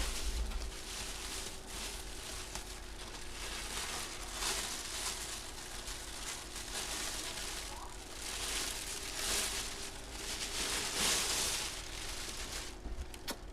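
Packaging rustling and crinkling in irregular swells as a full-size football helmet is handled and unpacked, over a faint steady hum.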